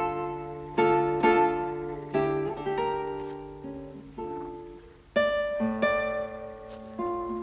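Closing theme music played on a plucked acoustic guitar: single picked notes and chords, each struck sharply and dying away, with fresh strums about a second in and again past the halfway point.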